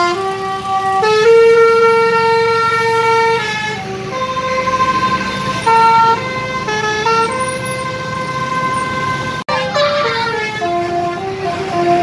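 Indonesian bus telolet horn, a multi-note musical air horn, playing a tune in held notes that step up and down in pitch. It breaks off briefly about nine seconds in, then carries on.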